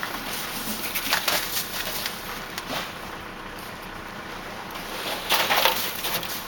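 A long-handled snow brush shoves packed snow across a car roof, making noisy scraping swishes. The strongest come about a second in and again near the end, with a smaller one in between.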